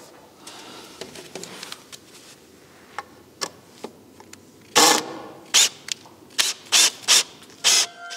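Cordless driver run in a string of short bursts, six or seven in about three seconds, driving long self-tapping screws through a wooden brace into a roof rafter. Light handling clicks and knocks come before it.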